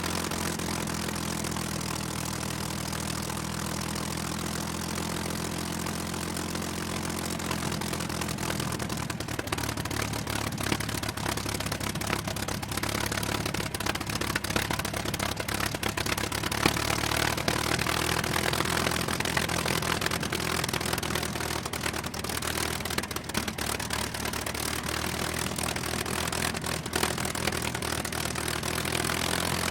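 Propeller aircraft piston engine running at a steady low speed, its pitch shifting slightly about nine seconds in and wavering again later.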